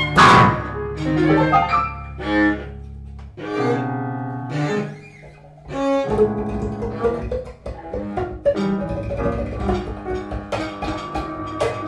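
Freely improvised music led by a bowed cello: scattered, irregular short notes with sharp starts, over a low held note that stops about three seconds in.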